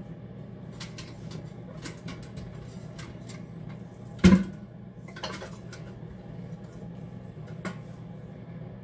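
Scattered metallic clinks and taps of metal parts and tools being handled, with one much louder clank about four seconds in, over a steady low hum.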